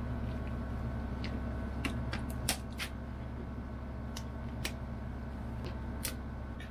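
Steel knife and fork clicking and scraping against grilled lobster tail shells on a plastic plate, about ten sharp clicks scattered unevenly. Under it runs a steady low machine hum.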